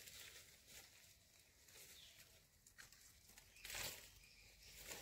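Near silence: faint background noise, with one brief soft noise, like a rustle or smack, about three and a half seconds in.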